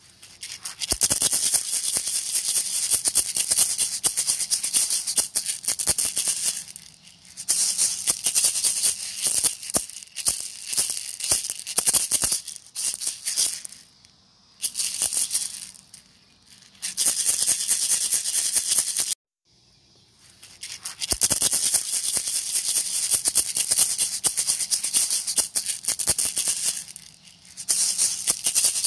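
A single hand-held maraca shaken hard, a fast dense rattle that comes in bouts of several seconds with short pauses between them, and cuts out completely for about a second two-thirds of the way through.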